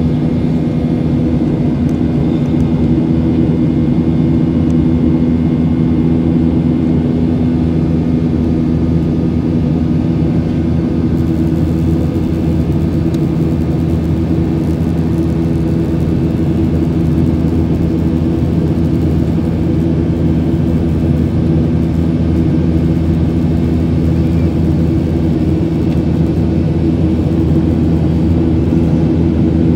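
Jet airliner cabin noise in flight, heard from inside the cabin: the turbofan engines and rushing air make a constant low hum with a few steady tones in it.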